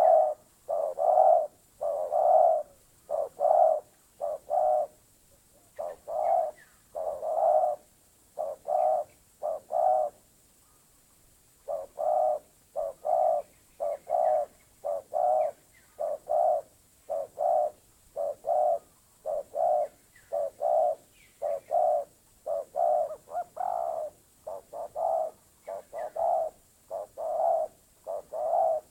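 Spotted dove (terkukur) cooing in a long series of short, mellow coos, about two a second, with a break of a couple of seconds about ten seconds in.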